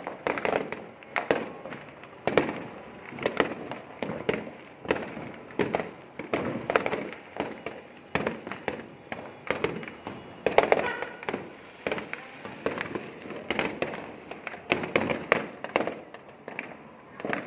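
New Year fireworks and firecrackers going off without pause: a dense, irregular string of sharp bangs and pops, several a second, some louder and nearer, others farther off.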